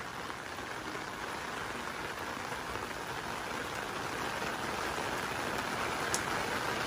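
Steady rain falling on a wet wooden deck: an even hiss that grows slightly louder toward the end, with one faint tick about six seconds in.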